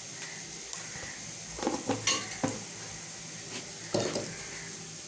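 Onion and garlic sizzling steadily in hot oil in a pan, with a spoon stirring and knocking against the pan: a few knocks together about one and a half to two and a half seconds in, and another about four seconds in.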